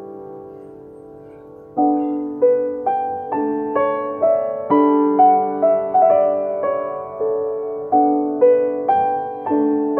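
C. Bechstein grand piano being played, picked up by a phone's microphone. A held chord dies away, then just under two seconds in a slow melody over chords resumes, a new note or chord struck about every half second and left to ring.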